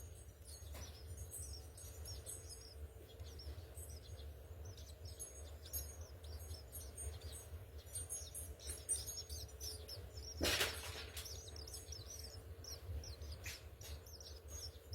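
House sparrows chirping, a busy run of short, quick chirps, over a steady low hum. A louder brief sound comes about ten and a half seconds in.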